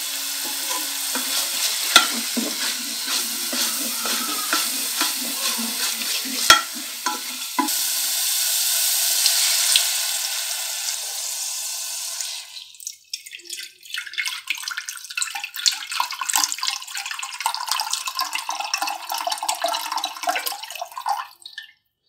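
Garlic and tomato paste frying in oil in a saucepan, sizzling while a wooden spoon stirs and knocks the pan twice. Water is then poured into the hot pan, giving a louder steady hiss, followed by crackling and spitting that stops shortly before the end.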